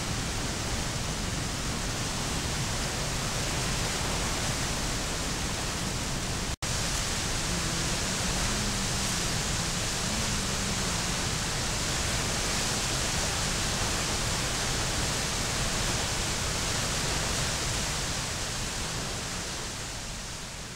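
River in flood rushing and churning down a cascade, a steady loud rush of water. It cuts out for an instant about six and a half seconds in, then fades away near the end.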